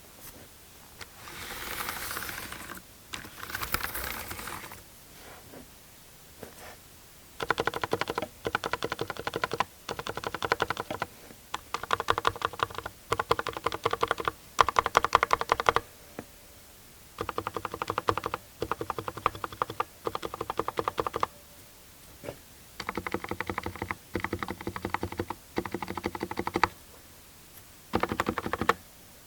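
Mechanical keyboard with Cherry MX Silent Red switches and PBT Cherry-profile keycaps being typed on in fast runs of a second or two with short pauses between them. Soft rustling comes first, before the typing starts. The reviewer notes a little case resonance and spring noise in its sound, which he puts down to the switches.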